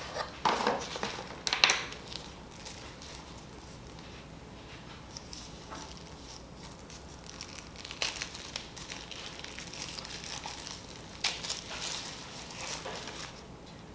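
Packaging being handled: a cardboard box opened and a wrapper crinkled as a small UV nail lamp is unwrapped. The sound comes in short bursts near the start, again in the middle and several times toward the end, with quiet rustling between.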